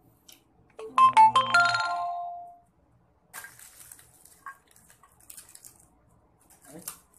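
A short electronic jingle of a few quick notes, the last one held and fading, about a second in. Then, from about halfway through, a fainter crinkling of foil and plastic chocolate wrappers as a hand rummages through them in a glass dish.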